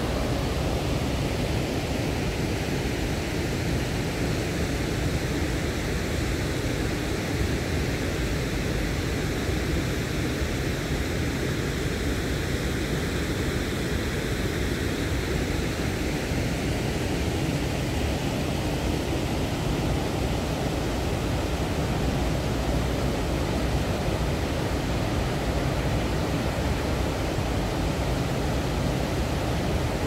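River water pouring over a stepped weir: a steady, even rush.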